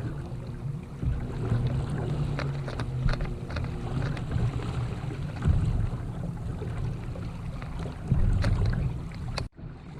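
Wind rumbling on the microphone aboard a kayak on open water, with scattered small knocks and clicks. The sound drops out suddenly for a moment near the end.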